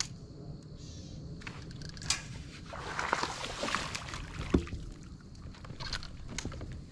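Kayak handling sounds on the water: a swish of water from about three to four and a half seconds in, with a few sharp knocks and clicks against the boat.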